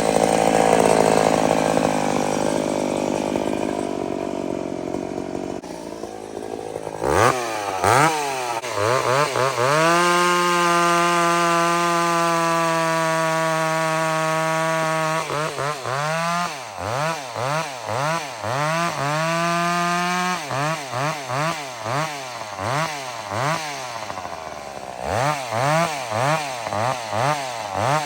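Vintage two-stroke chainsaw, about fifty years old, running under load at first. It then revs up and holds a steady high pitch for about five seconds. After that the throttle is blipped over and over, the engine note rising and falling about once a second.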